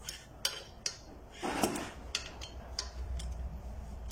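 Metal clicks and clinks of a 17 mm socket and wrench on a car's wheel bolts as they are loosened, with a short louder scraping noise about a second and a half in.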